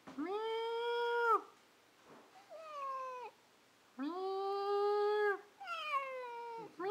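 Domestic cat meowing: four drawn-out meows with short pauses between them. Two are long and hold a level pitch, and two are shorter and fall in pitch.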